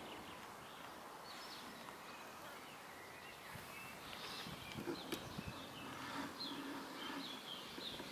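Faint background ambience with scattered short bird chirps, more of them in the second half, and a single sharp click about five seconds in.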